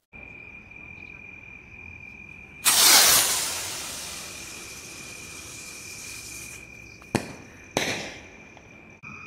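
A firework rocket goes off with a sudden loud hiss that fades slowly as it climbs, then bursts with two sharp cracks about half a second apart. Crickets sing steadily in the background.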